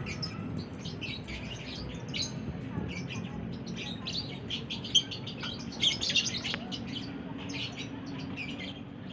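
A flock of lovebirds chirping: many short, high calls overlapping, busiest in the middle, with one sharp louder call about five seconds in, over a low steady background hum.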